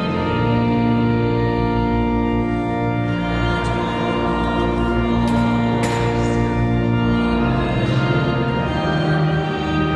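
Organ playing slow, sustained chords, each held for a second or two before changing.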